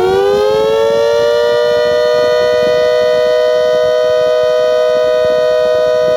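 Homemade 3D-printed miniature ACA Hurricane siren, driven by a blower, finishing its wind-up early on and then holding a loud, steady two-tone wail.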